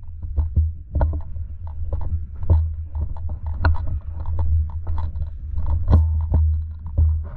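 Irregular crunching and cracking footsteps through dry brush, over a steady low rumble.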